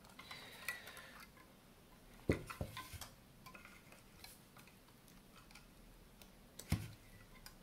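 Scattered small clicks and ticks of plastic and metal parts being handled as an LCD display's backlight assembly is eased away from its metal chassis, with two sharper clicks, one about two seconds in and one near the end.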